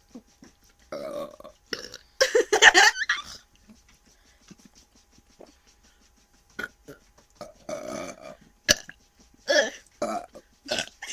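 A series of deliberate, contest-style human burps: a long, loud belch about two seconds in, then after a pause a shorter run of burps near the end.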